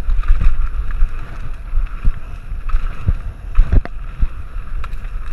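Mountain bike descending a dirt singletrack: wind buffeting the camera microphone over the tyres rolling on dirt, with the bike rattling and a few sharp knocks from bumps, the strongest a little past halfway.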